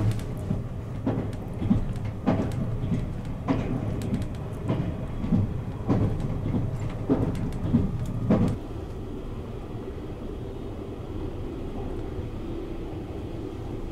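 Limited express train running, heard from inside a passenger compartment: a low rumble with regular knocks about every half second, which stop after about eight seconds, leaving a steadier, smoother running rumble.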